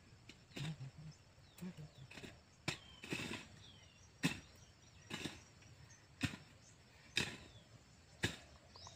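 A short-handled hoe chopping into soil, about one dull strike a second, as the ground between rows of vegetable plants is worked.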